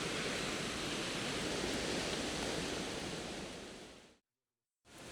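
Steady rush of falling water from a waterfall, fading out about four seconds in and cutting to a moment of silence.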